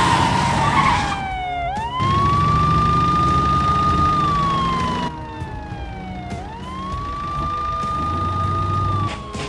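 Police siren wailing: a single tone sweeps up quickly, holds, then slides slowly down, about every four and a half seconds, over the steady hum of a vehicle engine. A rushing noise sits under it in the first second.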